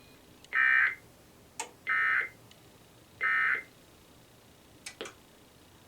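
Three short EAS digital end-of-message data bursts, each a brief buzzy screech, sent about a second apart to close an Emergency Alert System test. A few sharp clicks come between the bursts and after the last one.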